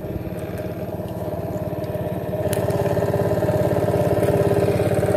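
A small engine running steadily with a rapid, even pulse, growing gradually louder.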